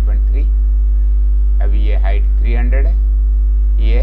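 Loud, steady electrical mains hum, with a ladder of fainter steady hum tones above it. A man's voice says a few short phrases over it: once at the start, once in the middle and once at the end.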